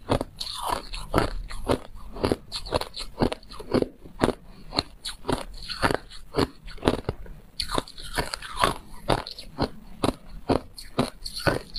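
Refrozen white ice being chewed: a steady run of crisp crunches, about three or four a second.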